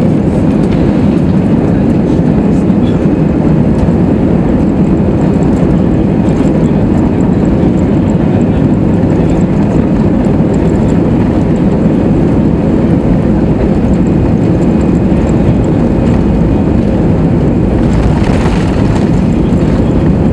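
Airbus A320's jet engines at take-off thrust heard from inside the cabin over the wing, a loud steady rush with a low rumble from the wheels on the runway during the take-off roll.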